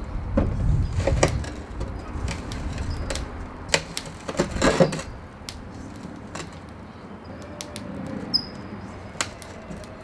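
Sticky damper dough being mixed by hand in a stainless steel bowl: irregular knocks and clicks of the metal bowl, heaviest in the first half, over a low rumble in the first two seconds.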